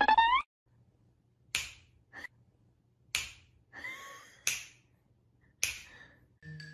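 A brief high-pitched call that rises in pitch at its end and cuts off within the first half second, followed by about six sharp clicks at irregular spacing over a faint low hum.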